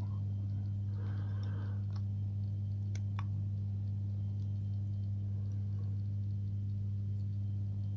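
A steady low electrical hum, with a few faint small clicks in the first few seconds as tiny lock pins are worked out of a euro cylinder with tweezers.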